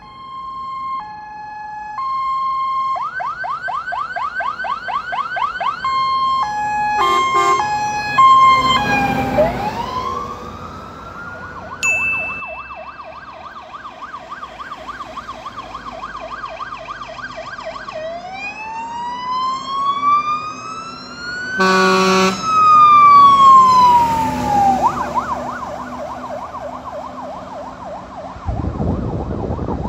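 Fire engines' electronic sirens cycling through patterns: alternating two-tone notes, a fast yelp, then a slow wail that rises and falls. Short air-horn blasts sound about a quarter of the way in and again at the wail's peak. A loud low rumble near the end comes from a truck passing close.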